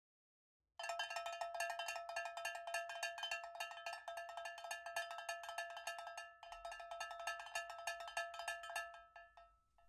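A small metal bell ringing in a rapid, continuous clatter of quick strikes on the same few pitches, with a brief break about six seconds in.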